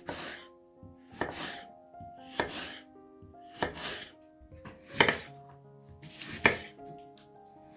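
Kitchen knife slicing a peeled raw potato on a bamboo cutting board: about six separate cuts, a second or so apart, the last two the loudest.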